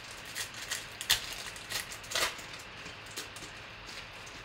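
Foil trading-card pack wrapper being torn open and crinkled by hand: a run of short crackling tears, the sharpest about a second in and again about two seconds in.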